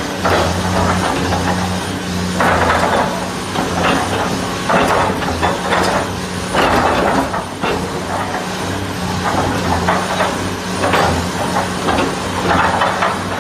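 CAT 336 hydraulic excavator's diesel engine running with a steady low hum, overlaid by repeated hissing bursts every second or two.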